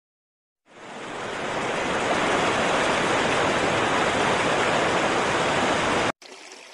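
Shallow river water rushing over rocks and gravel, a steady noise that fades in about a second in and cuts off suddenly near the end.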